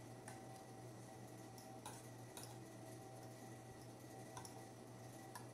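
Metal spoon and fork clicking lightly against a plate, about half a dozen scattered clicks, over a faint steady low hum.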